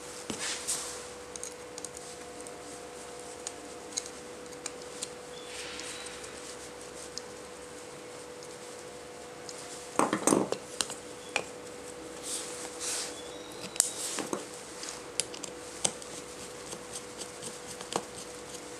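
Aluminium plates of a handmade rubber band gun frame clicking and clinking as they are handled and fitted together, with a louder clatter of metal knocks about halfway through. A faint steady hum runs underneath.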